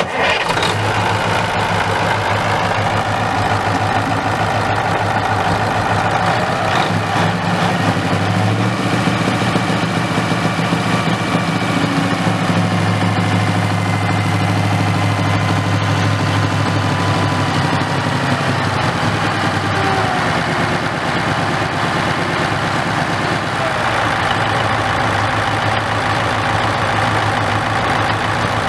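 1979 Ford FW30 tractor's Cummins 903 V8 turbo diesel idling steadily.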